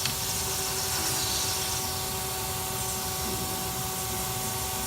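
Vacuum cleaner running in reverse with a steady motor whine, blowing air into the exhaust system to pressurize it for finding leaks with soapy water. A hiss rises over it for about the first second and a half.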